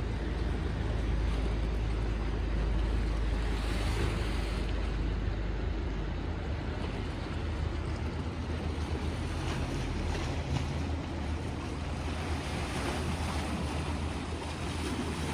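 Wind rumbling on the microphone over the lake, with small waves washing and splashing against the shoreline rocks.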